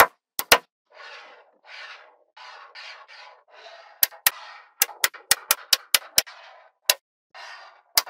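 Small magnetic balls clicking sharply as they snap onto each other, mixed with soft scraping as slabs of balls are slid across the table. A few clicks just after the start, about three seconds of scraping, then a run of clicks about two or three a second, and more scraping near the end.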